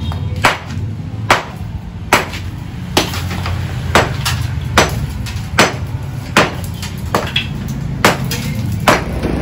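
Hammer striking a steel chisel against a concrete step, chipping off its broken edge: sharp metallic blows at a steady pace, a little faster than one a second.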